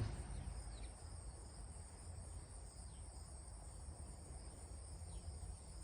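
Cicadas droning steadily, a thin high buzz, over a low rumble. A few faint short falling chirps sound now and then.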